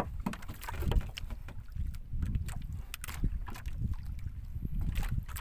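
Wind rumbling on the microphone in a small boat at sea, with scattered knocks and clicks from hands working in the hull.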